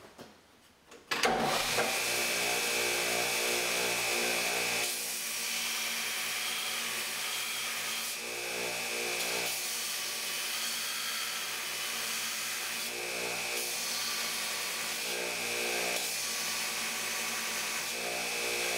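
Home-built 2x72 belt grinder, driven by a 1.5 hp single-phase 3450 RPM motor, grinding the end of a half-inch by one-inch steel bar on a worn 60-grit ceramic belt. The sound comes in suddenly about a second in and holds loud and steady, a high whine over the motor hum with coarse grinding noise that shifts a little every few seconds.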